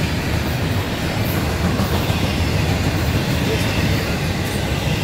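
Freight train of double-stack intermodal well cars rolling past at speed: a steady, loud rumble of steel wheels on rail.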